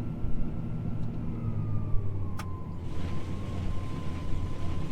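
John Deere T670i combine running steadily, heard from inside the cab as a low hum, with a faint whine that dips a little in pitch and rises again. There is a single click about two and a half seconds in, and a hiss comes in soon after.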